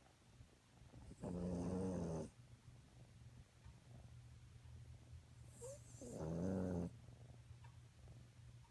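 A sleeping dog snoring: two long, pitched snores about four and a half seconds apart, with a faint low steady rumble between them.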